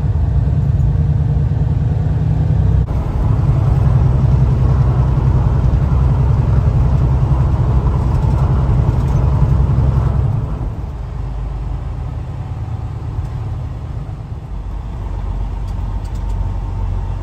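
Semi-truck engine and road noise heard inside the cab while driving: a steady low rumble that drops to a quieter rumble about ten seconds in.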